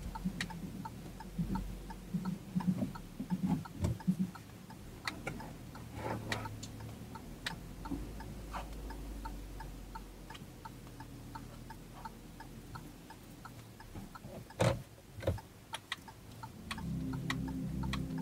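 Car turn-signal indicator ticking steadily over a low engine hum inside the cabin. A single sharp knock sounds about two-thirds of the way through, and music comes in near the end.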